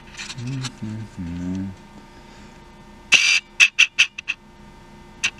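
A man's low wordless hum in three short pieces, then a brief scrape-like rush of noise followed by a quick run of about seven sharp clicks, and one more click near the end.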